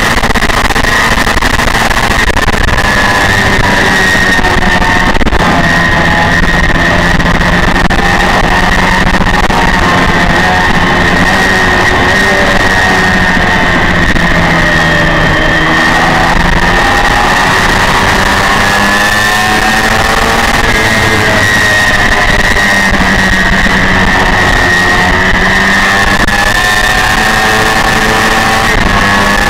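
Honda VFR400's V4 engine at high revs under race throttle, roughly 11,000 to 15,000 rpm, its pitch falling and climbing again several times as it slows and drives out of corners. Heavy wind rush over the onboard camera runs underneath.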